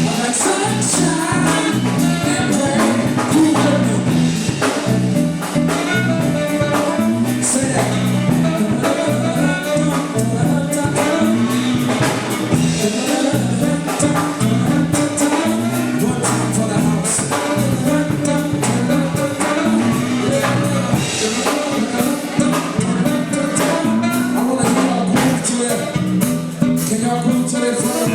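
Live soul band playing, with drum kit, a repeating bass line, tambourine and singing.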